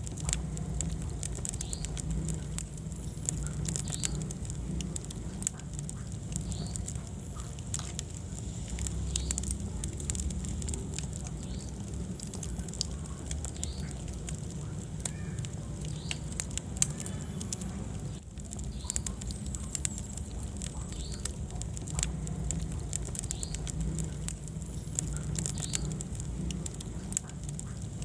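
Wood fire in a fireplace crackling, with frequent sharp pops over a steady low rumble of the flames.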